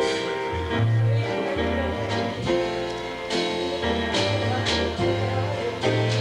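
Upbeat band music: a bass line stepping from note to note about twice a second under guitar and other pitched instruments, with regular drum hits.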